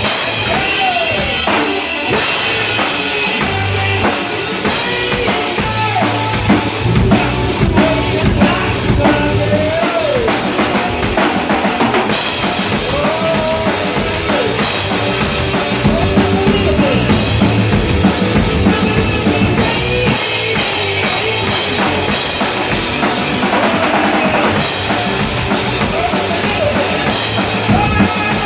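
Music driven by a drum kit, with kick drum and snare keeping a steady beat under short melodic lines that bend in pitch.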